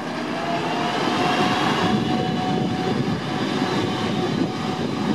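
A train pulling into the station: a steady rumble of the wheels and cars, with a thin high whine that rises slightly in pitch in the first second and then holds steady.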